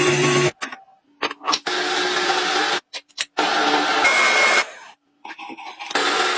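Metal-machining noise from machine tools, in several short stretches that start and stop abruptly, with brief gaps and a few clicks between them.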